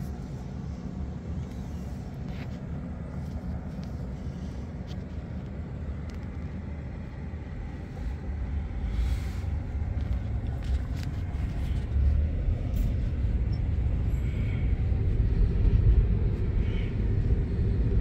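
Low, steady rumble of road and tyre noise inside a moving Tesla's cabin, growing louder from about halfway through.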